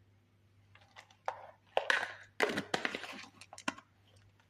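Whole cloves being handled and tipped into a saucepan: a quick run of short clicks and rattles, busiest in the middle.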